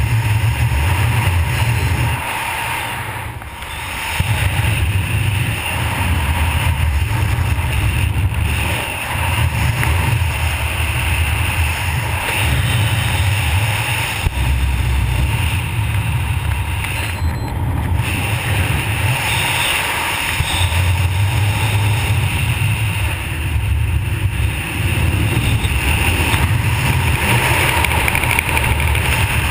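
Wind rushing and buffeting over a helmet camera's microphone as a skydiver descends, a steady loud rush with gusty low rumbling that eases briefly about three seconds in.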